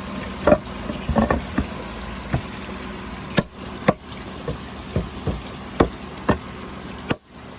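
Irregular sharp knocks and taps, about a dozen spread unevenly, from working on wooden bridge slats and screws, over a steady background of running pond water.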